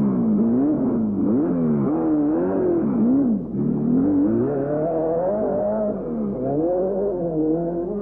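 Ferrari 308 GTB rally car's V8 engine revving hard and falling back several times in quick succession as the driver works the throttle and gears through a corner. After a short lift about three and a half seconds in, it pulls up to higher, steadier revs.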